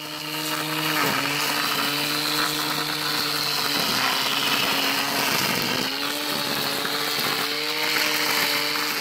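Corded angle grinder rigged as a grass trimmer, running at full speed with a loud, steady whine as it cuts grass and weeds. Its pitch sags briefly three times, about a second in, around four seconds and around six seconds, as the cutting head takes load in the grass.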